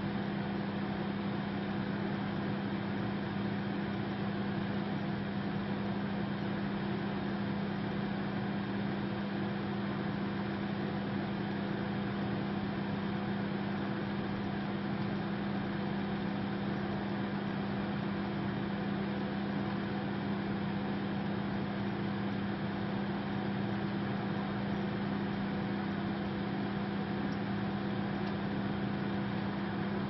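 Microwave oven running, a steady, unchanging hum with an even whir above it.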